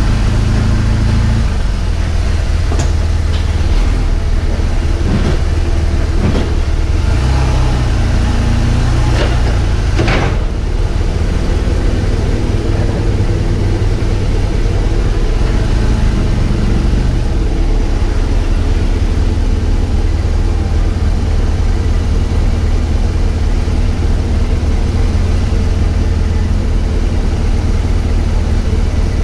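BMW R1200GS flat-twin engine running steadily at low revs, a deep even rumble, with a few short knocks in the first ten seconds or so.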